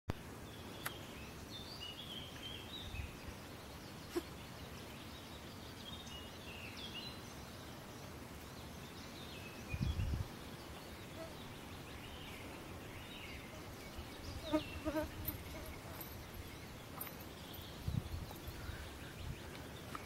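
Forest songbirds, among them a Eurasian blackbird, singing in short repeated phrases. Low thumps of camera handling and footsteps break in now and then, the loudest about halfway through as the camera swings.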